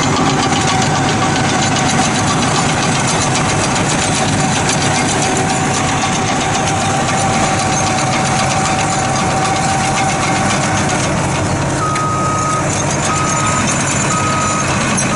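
Volvo EC700CL excavator's diesel engine running, heard from inside its cab, with a steady high hum that stops about two-thirds of the way through. Near the end a backup alarm starts beeping, about one beep a second, four times.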